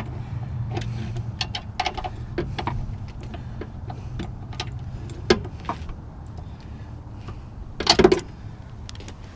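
Scattered metallic clicks and clanks of hand tools being handled under a car, as a torque wrench is fitted toward a suspension bolt, with a louder clatter about eight seconds in, over a steady low hum.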